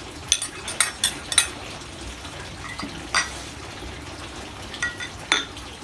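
A metal ladle and small ceramic bowls clinking against a stainless steel mixing bowl and each other: a quick run of four sharp clinks in the first second and a half, then single clinks about three seconds in and twice near the end.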